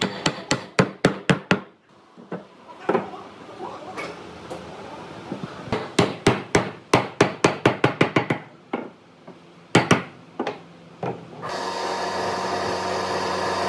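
Hammer striking wood in two quick runs of several blows a second, with a few single blows in between. Near the end a steady machine noise starts and keeps running.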